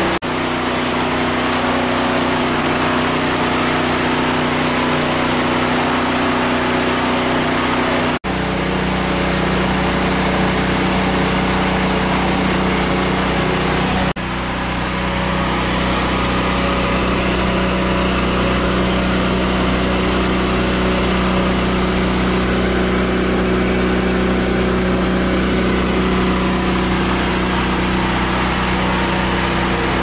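An engine or motor running steadily at constant speed, a continuous hum with a few steady tones in it, cut off briefly twice, about 8 and 14 seconds in.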